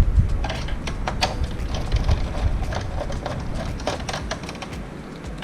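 A screwdriver working a screw out of a printer's plastic chassis: a quick run of small clicks and scrapes of metal on plastic, over a low rumble that fades near the end.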